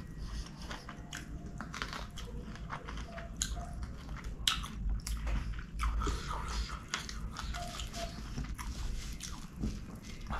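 Chewing of chicken kottu and devilled chicken, close to the microphone: an irregular run of mouth clicks as a mouthful of food is chewed, one louder click near the middle.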